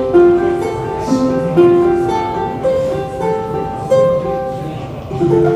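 Instrumental music: a melody of separate notes, each starting sharply and fading, about two a second, over a soft lower accompaniment.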